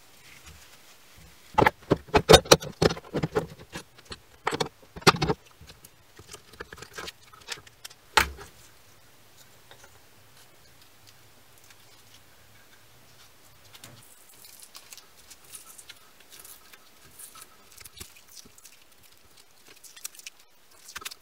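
Steel F-clamps being loosened and taken off the glued knife handle: a few seconds of metallic rattling and clicking, then a single knock. Later, faint crinkling of masking tape being peeled off the wooden handle.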